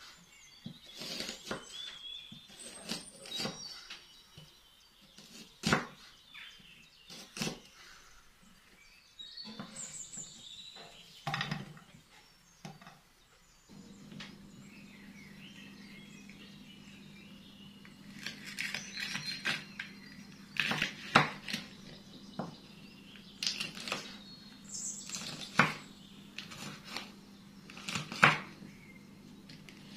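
A kitchen knife slicing red onion, and later green bell pepper, on a wooden cutting board: irregular sharp taps of the blade striking the board. A steady low hum comes in about halfway through.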